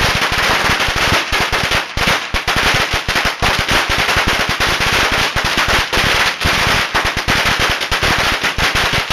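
A long hanging string of firecrackers going off, a loud, continuous rapid crackle of small bangs with no let-up.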